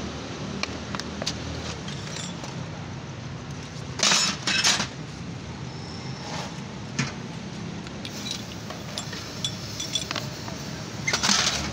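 Water splashed from a plastic bottle onto a freshly gas-welded steel car-seat frame: a few short splashes, two close together about four seconds in and one near the end, over a steady low hum.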